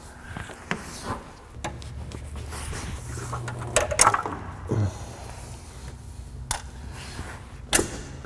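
Metal hand tools clinking and knocking while working at a car's brake proportioning valve: a wrench and then pliers handled in the engine bay, with several sharp clicks scattered through, over a low steady hum.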